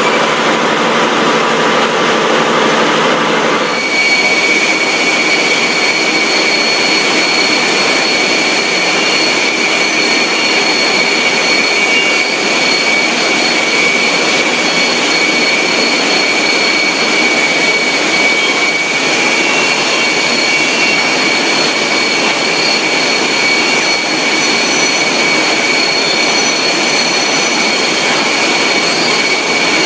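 Loud, steady factory machinery noise from a food-processing line, with a constant high whine that joins about four seconds in and holds.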